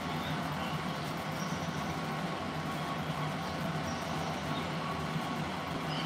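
Steady room hum and hiss from a running appliance, with a few faint high chirps.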